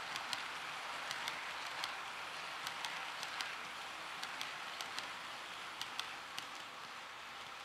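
Model railway freight train of Chiki 7000 flatcars rolling past on the track: a steady rolling hiss with sharp clicks, a few a second, as the wheels run over the rail joints. The clicks stop a little after six seconds in as the brake van goes by, and the sound fades.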